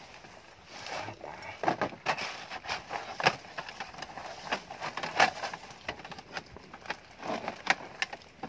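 A run of irregular clicks and knocks with rustling, scattered unevenly.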